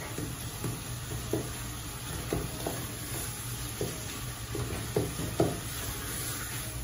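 Wooden spatula stirring chopped onions and seasonings frying in oil in an aluminium pot: a steady sizzle with irregular scrapes against the pot, the loudest a little past five seconds in.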